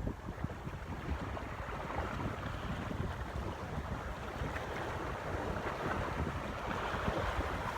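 Wind rumbling on the microphone over a steady rushing wash of water, with no distinct events.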